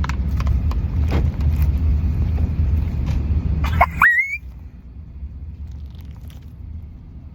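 Plastic packaging crinkling and rustling as a squishy toy is opened, over a steady low rumble. About four seconds in a short rising squeak sounds, and the rumble then drops to a quieter hum.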